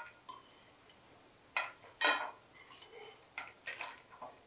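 Steel ladle clinking against a steel frying pan and plate while fried dried red chillies are scooped out of the oil: about six short metallic clicks, the loudest about two seconds in.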